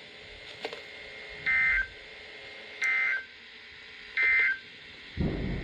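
Three short, identical bursts of Emergency Alert System SAME digital data, warbling between two tones about 1.3 seconds apart. Coming straight after the warning's last sentence, they are the end-of-message code that closes an EAS alert.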